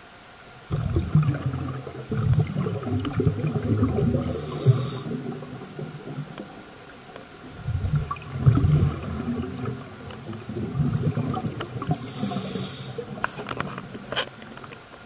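Scuba diver's breathing heard underwater through a regulator: two long bubbly, gurgling exhalations, each followed by a short hiss of inhalation, with a few clicks near the end.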